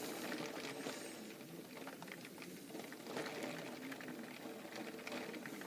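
Heavy rain falling, heard as a faint, even patter of many small drop ticks.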